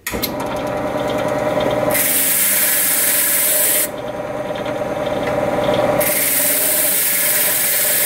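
Key-cutting machine's motor running with its buffing wheel spinning, and a freshly cut metal key pressed against the wheel twice, each time for about two seconds, giving a loud hiss as its new cuts are buffed smooth.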